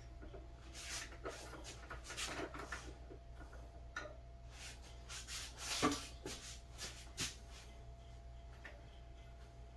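Faint handling noises: small clicks, taps and scraping as a screw is fed and turned into a red dot sight's mount, with a sharper click about six seconds in.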